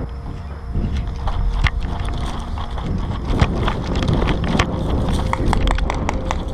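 Paintball markers firing: a string of sharp pops at irregular spacing, some in quick runs, over low wind rumble on the microphone.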